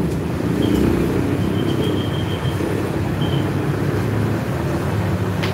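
Steady road traffic noise: vehicle engines running with a low rumble, and a faint high-pitched tone that comes and goes during the first three seconds.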